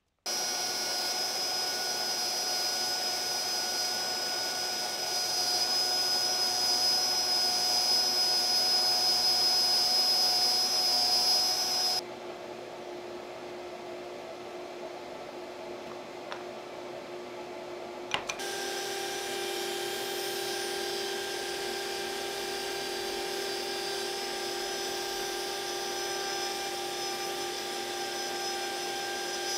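Shaper Origin handheld CNC router running with its dust extractor: a steady whine over a hiss of air. It drops quieter about twelve seconds in, then about eighteen seconds in comes back with a different pitch and holds steady.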